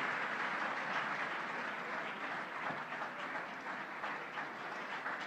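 Audience applauding, the clapping easing off slightly toward the end.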